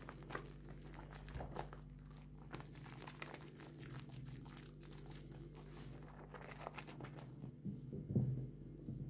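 Hands squeezing and kneading thick soap lather around a bar of soap: a dense, fine crackling of popping bubbles and squishing foam. The crackle thins out near the end, with one louder soft squelch about eight seconds in.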